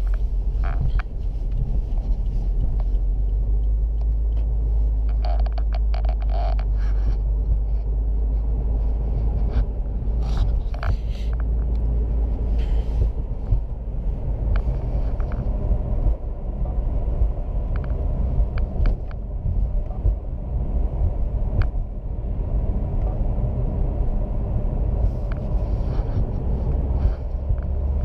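Steady low rumble of a running road vehicle, with scattered light clicks and knocks.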